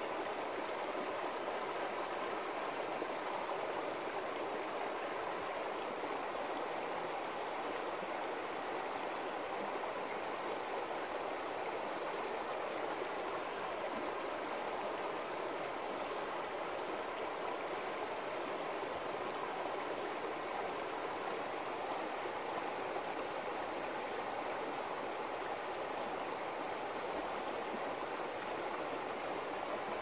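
Shallow, clear river flowing over gravel and stones, a steady, unbroken rush of water.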